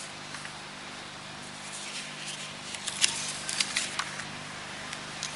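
Sheets of paper rustling and clicking close to a podium microphone, a handful of short crackles about three to four seconds in, over a steady low electrical hum and hiss from the sound system.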